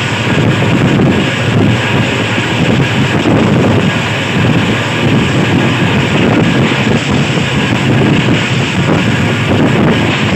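Wind rushing over the microphone at the open door of a moving passenger train, mixed with the steady rumble of the coach running on the track. Loud and even throughout.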